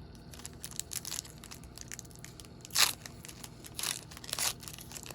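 A sealed pack of trading cards being torn open by hand, the wrapper crinkling and tearing in short rustles, with a few louder crackles a little after halfway and near the end.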